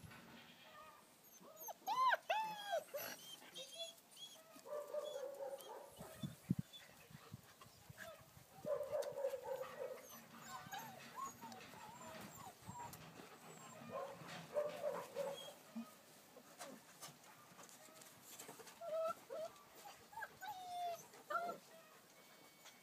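Dogs playing, whining and whimpering on and off, with a loud high yelp that rises and falls about two seconds in.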